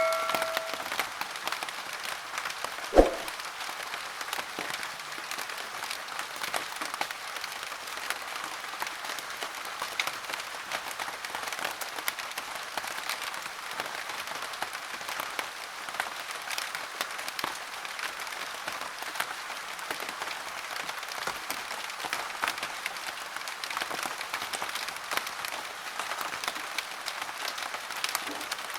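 Steady rain pattering, a dense crackle of many small drop impacts. One sharp knock sounds about three seconds in.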